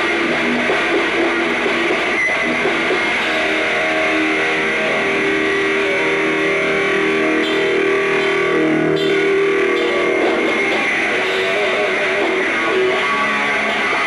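Heavy metal band playing live on stage, with loud, steady electric guitar to the fore and bass guitar beneath, held notes ringing over one another.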